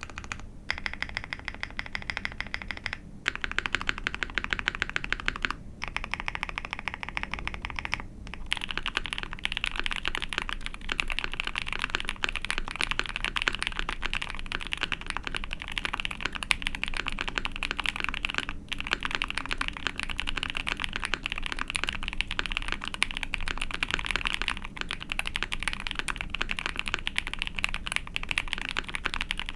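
Mechanical keyboard typing on lubed linear Zaku BCP frankenswitches (Zaku stems in H1 bottom and Cherry top housings) in an ai03 Vega 65 with a POM plate and GMK keycaps: a fast, continuous run of keystrokes. There are brief pauses about 3, 6, 8 and 19 seconds in, and the typing is denser after about 8 seconds.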